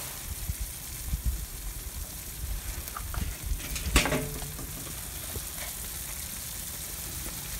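Chicken wings sizzling on the grate of a charcoal kettle grill next to a basket of glowing coals: a steady hiss, with a sharp click about four seconds in.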